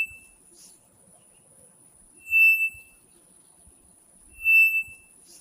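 A bird calling with a single steady whistled note, each about half a second long, repeated about every two seconds; two full notes sound, plus the end of one at the very start.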